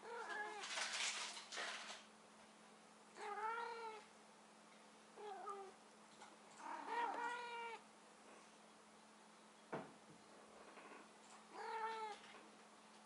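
Domestic cat meowing in five drawn-out calls a couple of seconds apart, each rising then falling in pitch, the yowling of cats at mating time. A short rush of noise comes about a second in, and a single knock near the ten-second mark.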